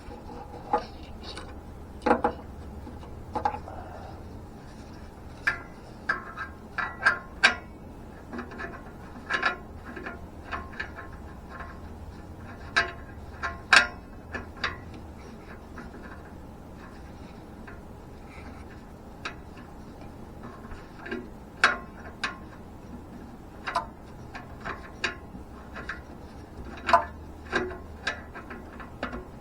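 Irregular metallic clicks and clanks of hand tools and parts being handled during an O2 sensor replacement, some in quick clusters, over a faint low hum.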